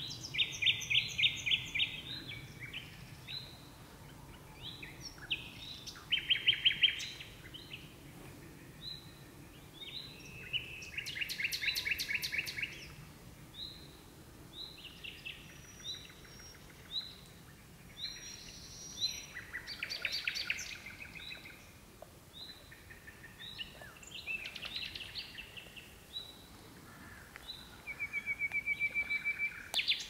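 Nightingale singing: loud phrases of rapid repeated notes and trills, separated by pauses of a few seconds. Near the end comes a run of pure whistled notes that swells in loudness.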